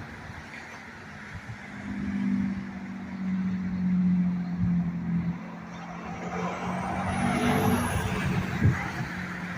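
A car driving past: a steady engine hum that gives way to tyre and engine noise swelling and fading as it passes, about two-thirds of the way in.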